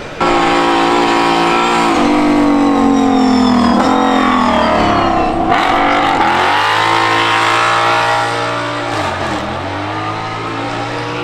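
Racing car engine under load on a hillclimb run. It starts suddenly, its pitch slides down for about five seconds, then it settles into a steadier, lower note with two brief dips.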